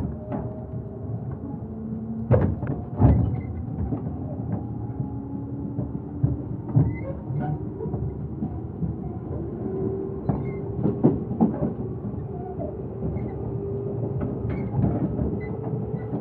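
Inside the carriage of a Japanese electric commuter train under way: steady rumble of wheels on rail, broken by sharp knocks and jolts from the track, the loudest about two to three seconds in and again near eleven seconds. A thin whine slowly rises in pitch underneath.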